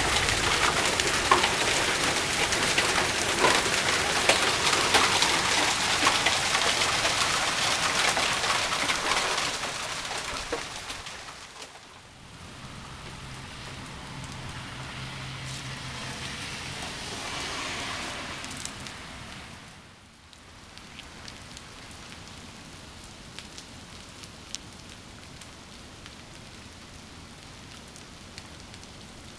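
Hail pelting down onto a concrete walkway and lawn, a loud dense hiss of countless hard ticks. After about ten seconds it fades away, and a much softer, steady patter with occasional ticks goes on.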